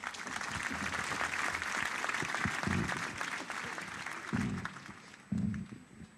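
Large crowd applauding, starting all at once and fading away after about four seconds, with a few dull thumps near the end.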